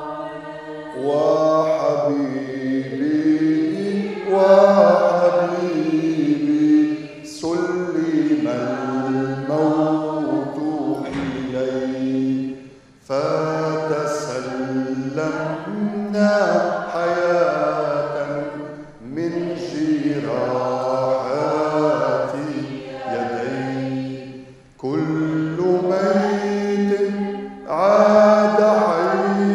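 Male voice chanting a liturgical hymn in long melodic phrases, breaking off briefly about every six seconds.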